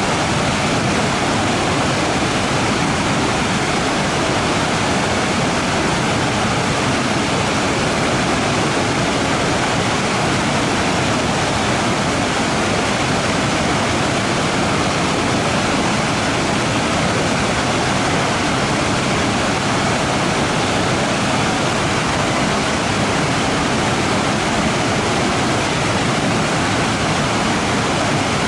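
Waterfall: water falling and rushing in a steady, unbroken roar.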